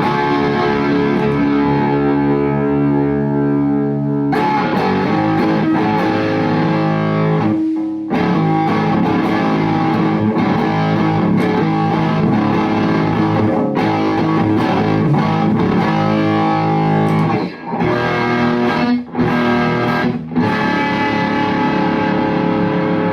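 Electric guitar (Epiphone Les Paul) played through an Orange Baby Terror amp and a Celestion G12 Neo speaker, with the gain turned up for a crunchy overdriven tone. It opens on one chord held for about four seconds, then moves into riffing with a few short stops near the end.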